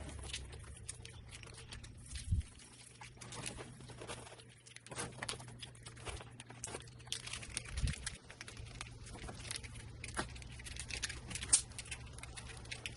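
Scattered small clicks and rustling of hands working with wiring and plastic parts, with a few louder knocks, over a low steady hum.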